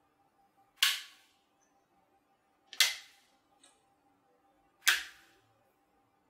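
Three sharp snaps about two seconds apart, each dying away quickly: small plastic POCKIT electronics modules clicking into place on their board.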